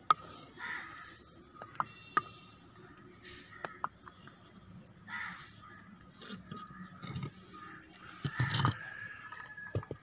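Irregular knocks and scrapes of a wooden pestle and clay pots being handled, with a louder clatter of cookware about eight and a half seconds in.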